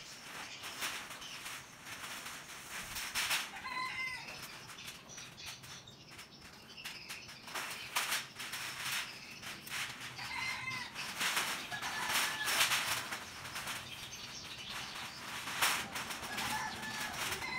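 Irregular rasping strokes of hand scrubbing on the wet concrete floor of a drained pond, with short bird calls five or so times.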